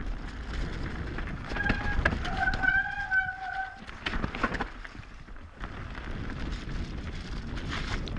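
Mountain bike descending a wet dirt trail: tyre noise, frame and chain rattle, and wind on the microphone. A disc brake squeals under braking, briefly at about one and a half seconds in and again for over a second around three seconds in.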